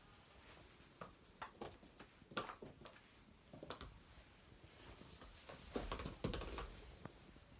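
Faint, irregular taps and scuffles of cats batting a ball around on the floor, with a louder knock about six seconds in.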